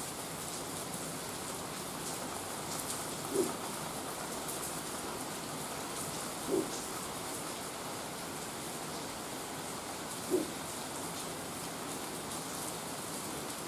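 Steady rain falling on wet pavement and leaves, a constant even hiss. Three short, low coos of a pigeon stand out above it, a few seconds apart.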